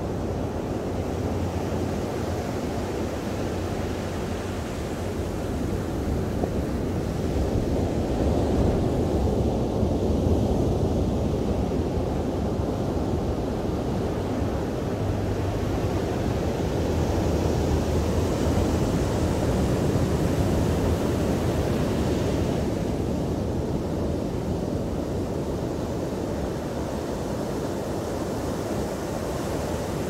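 Ocean surf breaking on a sandy beach: a continuous wash of waves, swelling louder about a third of the way in and again just past the middle.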